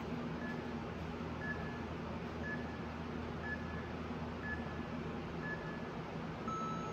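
Interval workout timer counting down: short high beeps about once a second, then a longer, lower beep near the end marking the start of the next interval, over a steady low hum.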